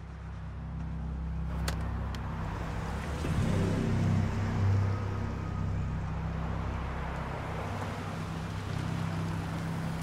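Car driving on a road: a steady engine hum under tyre and road noise, swelling louder around four seconds in. Two short clicks come about two seconds in.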